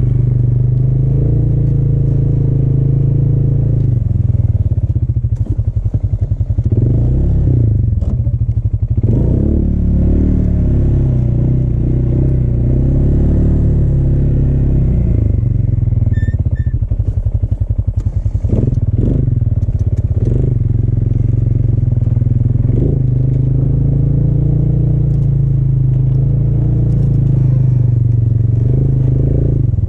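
ATV engine running under load as it pushes deep snow with its front plow blade. The engine pitch rises and falls several times.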